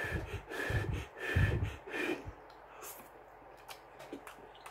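A person slurping instant noodles off a fork: four short, loud slurps in the first two seconds, then quiet chewing with small mouth clicks.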